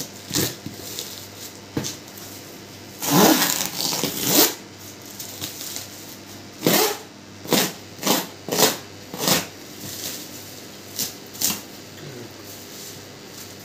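Knife slitting and hands ripping a woven plastic sack wrapped round a cardboard parcel: a longer stretch of tearing about three seconds in, then a string of short rips and rustles.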